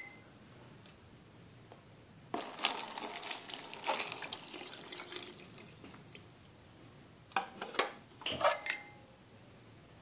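Hot water poured from a cup onto a leather baseball glove lying in a sink, to soak and soften it. A splashing pour of about two seconds begins a couple of seconds in, with a few shorter splashes and knocks around eight seconds in.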